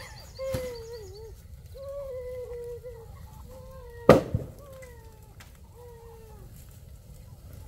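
Chickens calling in a series of long, wavering notes, with one sharp knock about four seconds in.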